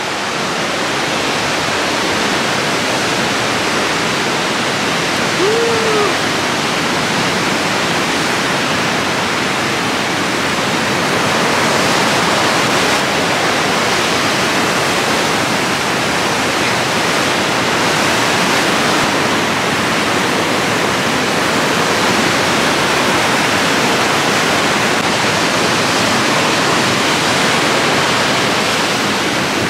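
Whitewater rapids of the Niagara River rushing: a loud, steady, unbroken noise of churning water.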